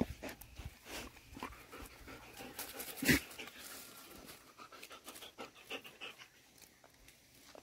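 Dogs panting as they tug and wrestle over a dry palm frond, with scattered crackles and rustles of the dry leaves and one louder burst about three seconds in.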